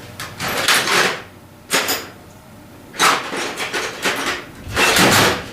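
Metal tools rattling and scraping in a toolbox drawer as it is rummaged through, in four short bursts.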